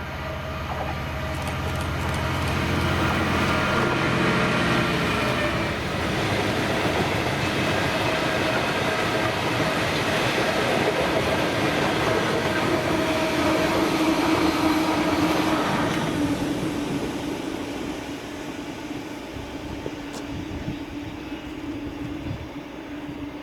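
GB Railfreight Class 66 diesel locomotive passing with an engineering train: the deep throb of its two-stroke V12 diesel for the first five seconds or so, then the rumble and clatter of the wagons rolling by, easing off after about sixteen seconds to a fading hum from the rails.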